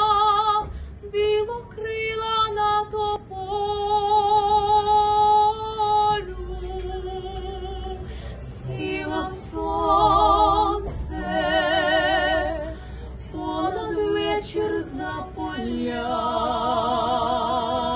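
Female vocal trio singing a cappella, with vibrato on long held notes. One voice carries the line at first, and the others join in harmony about six seconds in.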